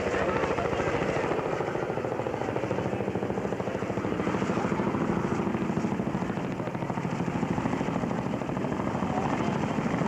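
Boeing Vertol CH-113 Labrador tandem-rotor twin-turbine helicopter in flight, its rotors beating at a steady rapid rate over the turbine engines.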